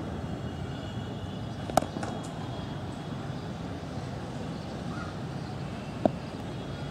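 Cricket bat striking the ball twice during a top-hand batting drill, a sharp crack each time about four seconds apart, over steady outdoor background noise.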